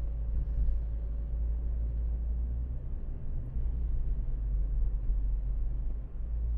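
Steady low drone of a 2012 Ford Focus on the move, engine and tyre noise heard from inside the cabin. No distinct knocks stand out.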